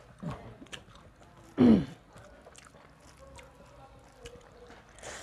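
Chewing and wet mouth clicks from people eating by hand, with a short, loud, hum-like vocal sound falling in pitch about a second and a half in, and a fainter one just after the start.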